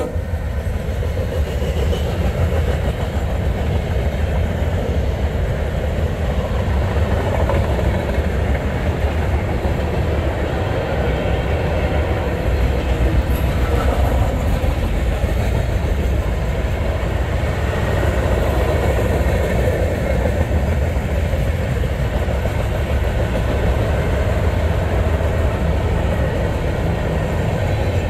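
CSX freight train rolling past at close range: a steady, loud low rumble with the noise of wheels on rails, continuing unbroken.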